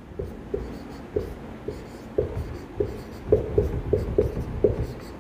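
Marker pen writing on a whiteboard: a string of short, irregular squeaks and taps as letters are written, coming thicker and louder in the second half.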